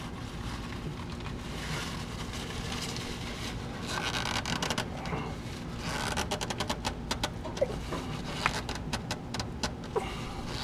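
Spin-on oil filter being twisted by hand through a rag on a Ford 5.8 L (351) V8, making rubbing and scraping sounds, with a run of quick clicks in the second half.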